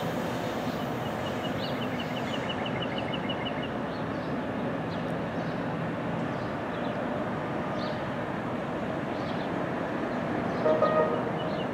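NJ Transit ALP-46 electric locomotive and multilevel coaches running along the track, a steady noise of wheels on rail. A quick run of high ticks, about eight a second, sounds in the first few seconds.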